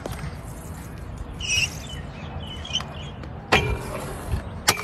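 Scooter wheels rolling on smooth concrete, then a sharp clack about three and a half seconds in and a few more quick clacks near the end as the scooter hits the ledge and the ground.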